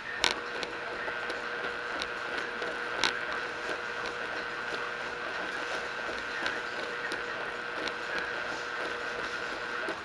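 1980s Speed Queen Maxi Load washing machine running: a steady whine that starts abruptly just after the start and cuts off just before the end, with scattered clicks and knocks, the loudest near the start and about three seconds in.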